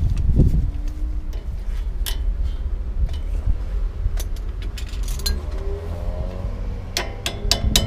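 Light metal clinks and taps from hand work on a front disc brake caliper fitted with new pads, with a quick run of sharper, ringing metal clinks near the end, over a steady low rumble.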